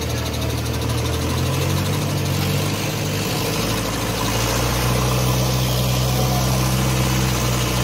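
Diesel engine of a lattice-boom crane running steadily under load. Its note shifts a couple of seconds in, then holds steady and a little louder.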